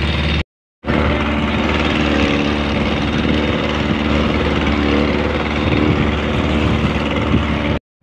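Small boat's 30-horsepower outboard motor running steadily under way, over the rush of water and wind. The sound drops out for a moment near the start and again at the very end.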